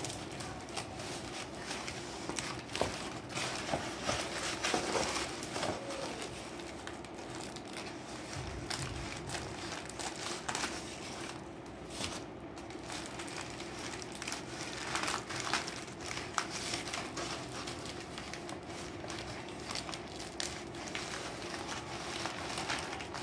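Newspaper wrapping rustling and crinkling irregularly as it is handled and cut open with scissors around potted plants.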